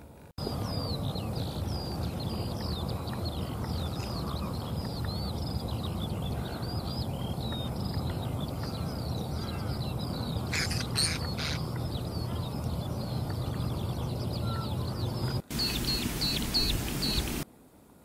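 Many birds chirping and calling together, short high notes overlapping one another over a steady low background noise. About fifteen seconds in the sound cuts to a hissy stretch with a quick series of repeated high notes, which stops abruptly near the end.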